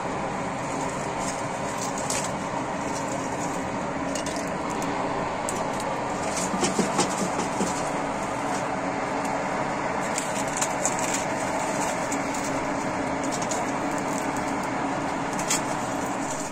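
Coal forge fire burning under its air blast: a steady rushing noise with scattered sharp crackles and pops from the coals, as a piece of spring steel heats in the fire.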